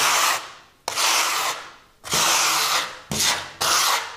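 Steel trowel scraping across a thin, fresh coat of architectural concrete plaster on a wall board, pre-smoothing it in about five strokes under a second each.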